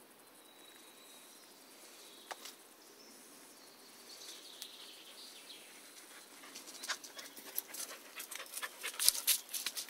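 A dog panting close by: a quick run of short breaths that starts about two-thirds of the way in and grows louder towards the end.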